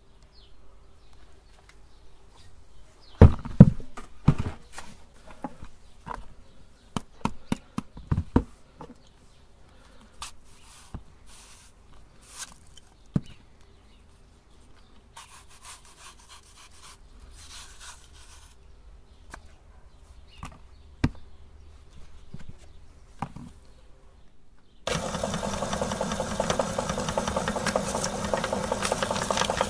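Scattered knocks and clicks of handling, with a knife cutting through apples in the middle, then an electric meat grinder's motor switches on suddenly about 25 seconds in and runs steadily.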